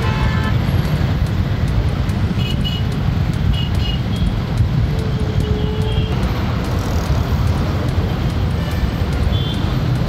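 Congested road traffic: many vehicle engines running as a steady low rumble, with short horn beeps now and then.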